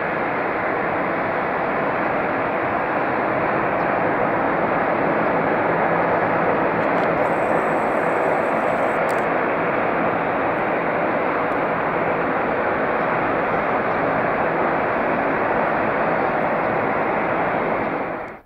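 Boeing 747-300F freighter's four jet engines running steadily while it taxis, a loud even rush that cuts off abruptly at the very end.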